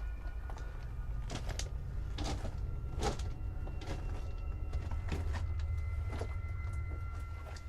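A steady low rumble, with a few scattered sharp knocks and clicks.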